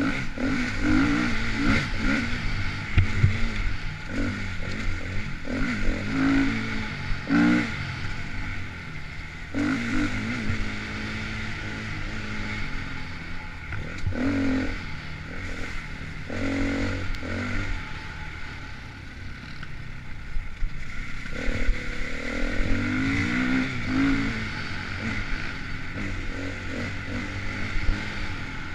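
Dirt bike engine revving up and backing off over and over as it is ridden along an enduro trail, with occasional knocks and clatter from the bike over rough ground.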